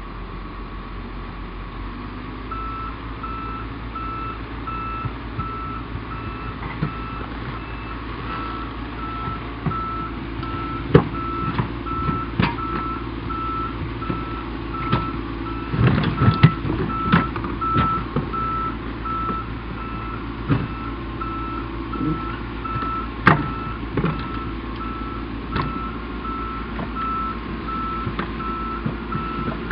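Tigercat forwarder's diesel engine running under load as the tracked machine backs along a lowbed trailer. Its reversing alarm beeps about twice a second, starting a couple of seconds in. Metallic clanks and knocks from the tracks on the steel trailer deck are loudest midway.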